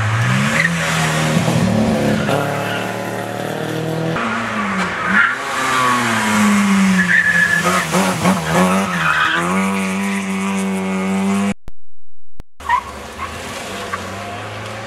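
Rally car engines revving hard, their pitch climbing and dropping with gear changes and lifting off, with short tyre squeals as the cars slide through a tight bend. Several cars pass one after another, joined by cuts, with a brief silent break a little before the end.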